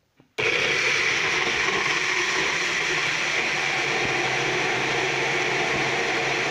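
Bullet-style personal blender switching on about half a second in and running steadily, blending fruit into a smoothie.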